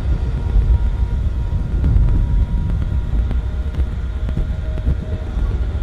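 Jupiter's "voice": the planet's radio emissions converted into audio, heard as a dense, loud, low rumble with a few faint steady tones above it.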